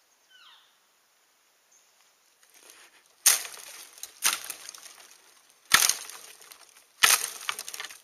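A stick whacking and raking the dry dead lower branches of a spruce: four loud crashing snaps with crackle after each, roughly a second or so apart, starting about three seconds in. It is an elk hunter's imitation of a bull elk thrashing a tree with its antlers.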